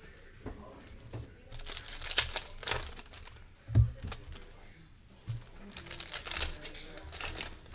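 Trading-card pack wrappers crinkling and tearing as they are ripped open by hand, in bursts about 1.5 s in and again around 6 s, with a single thump near 4 s.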